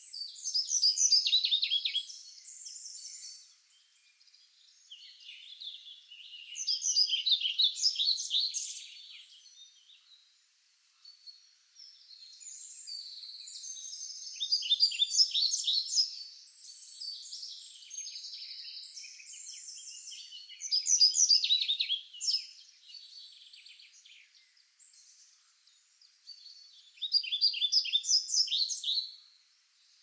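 Songbirds singing: a loud phrase of rapid, falling notes comes about every six seconds, five times, with softer chirping from other birds in between.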